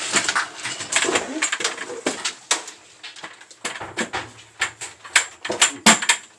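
Clattering and knocking of hard boxy electronic units being handled and stacked, a string of irregular sharp clicks and bumps.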